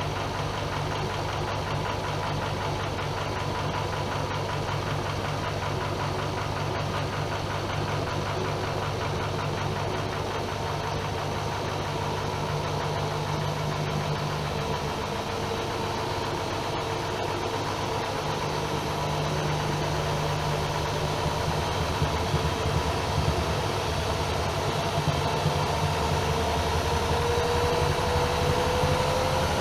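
AEG Öko-Lavamat Lavalogic 1600 washing machine running with a steady motor hum and drum noise. Over the last few seconds a motor whine rises in pitch as the drum speeds up.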